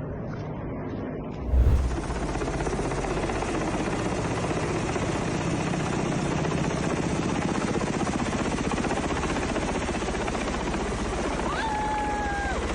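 Helicopter running close by: its rotor beats fast and steadily under dense engine and wind noise. A short loud thump comes about a second and a half in, and a brief high tone sounds near the end.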